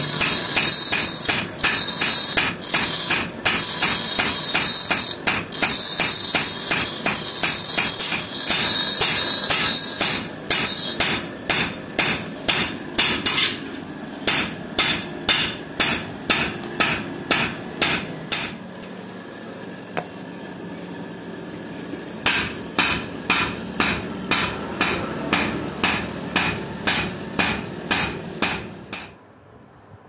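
Metalworking in a workshop: a bench grinder grinding steel with rapid strikes over it, then hammer blows on metal at an even pace of about two a second, with a short pause in the middle.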